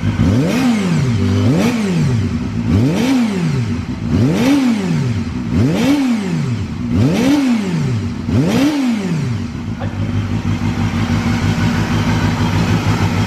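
Honda CBR250RR (MC22) water-cooled 250 cc inline-four, heard at its stock muffler, revved in seven quick throttle blips about a second and a half apart, each rising and falling in pitch. It then settles to a steady idle for the last few seconds.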